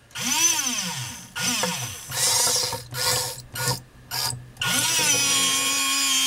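Small electric gear motors of an RC rover's robot arm, switched on and off in several short runs, each whine rising then falling in pitch, then one longer steady whine from about five seconds in.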